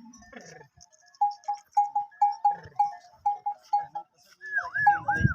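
A cameleer whistling calls to the camels, used to coax them to let down their milk for milking. It starts as a quick run of short, even notes at one pitch, about four a second, then turns into a string of higher swooping notes that dip and rise again near the end, with a rough low noise underneath.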